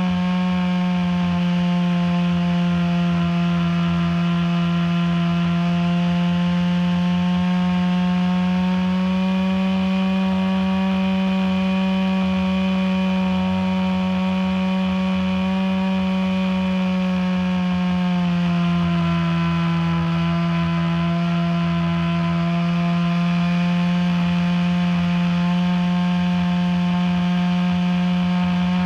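Ultra Stick RC airplane's motor and propeller running steadily in flight, a loud, even buzz heard close-up from a camera on board, with a low rumble of air underneath. The pitch sags a little about a quarter of the way in and again just past the middle, then climbs back as the throttle changes.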